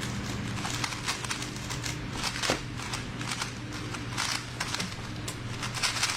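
A speedcube being turned fast during a speed solve: a quick, irregular run of plastic clicks and clacks over a steady low hum.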